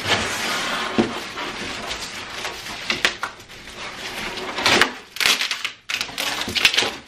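Cardboard packing being pulled out of a shipping box: a stiff cardboard insert sliding and scraping against the box walls and rustling, with a few sharp knocks.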